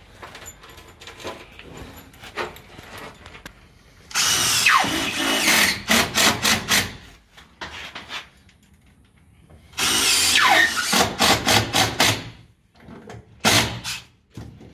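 Cordless drill driving screws through an AAC wall panel into the battens behind it. There are two long runs, each with the motor pitch dropping as the screw bites, ending in a few short trigger pulses as the screw is seated, and a brief burst near the end.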